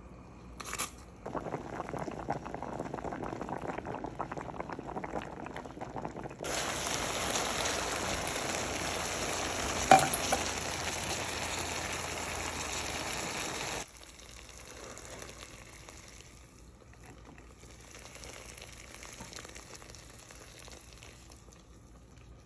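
Liquid bubbling and sizzling in a pan on the stove as the cassava dish cooks. The sound jumps abruptly in loudness a few times, and there is one sharp clink about ten seconds in.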